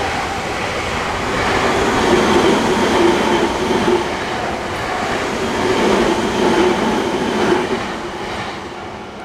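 Electric train rolling past a level crossing, the noise of its wheels and cars steady, then fading away in the last second or two as it moves off.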